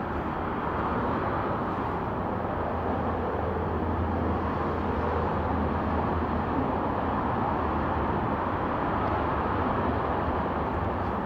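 Steady low rumble of a running vehicle engine, with an even hum underneath and no breaks.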